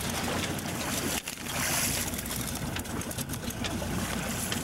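Water rushing and splashing along the hull of a boat under way, with a low steady hum underneath. The sound drops out briefly about a second in.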